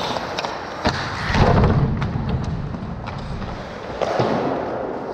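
Hockey game play in an echoing rink: several sharp stick-and-puck clacks, then a heavy thud about a second and a half in, like a body or puck slamming into the boards.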